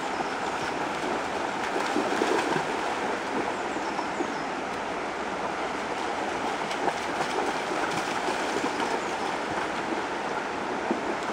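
Shallow river water rushing steadily over stones, with the irregular splashing of a large dog wading and trotting through the current.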